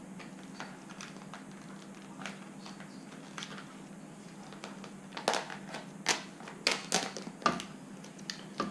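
Vinyl wrap film crinkling and crackling as it is handled and stretched by hand. The crackles are sparse at first, then come thicker and sharper from about five seconds in, over a steady low hum.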